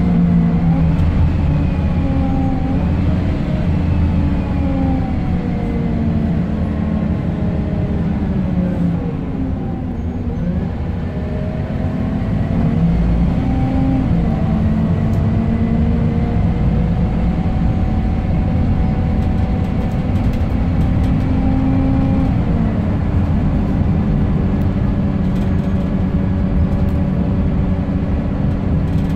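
Scania K270UB bus's rear-mounted five-cylinder diesel engine pulling along the road, heard from inside the passenger saloon, with a whine that rises and falls in pitch with road speed. About ten seconds in it slows and then picks up speed again, and the whine drops away once more near the two-thirds mark.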